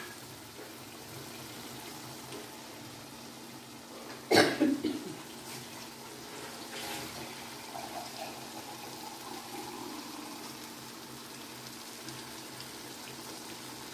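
Potato and pea curry sizzling gently in an aluminium karahi on a gas burner, a steady low hiss, with one sharp knock about four seconds in.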